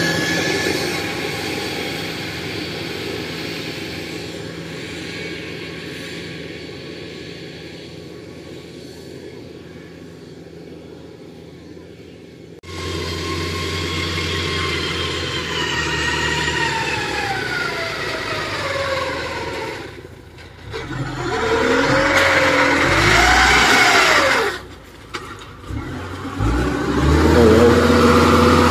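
Engine of a motorised rice-hauling field cart running and fading away as the cart drives off. About 13 s in the sound jumps to the engine of the sack-laden cart, louder, its pitch falling and rising with the throttle, and it runs loud and steady near the end as the cart pulls up close.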